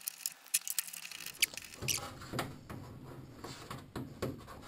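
Hand-handling noise of a wooden block and small tool parts being fitted into place: irregular light taps, clicks and scraping of wood against wood, a little louder about two seconds in.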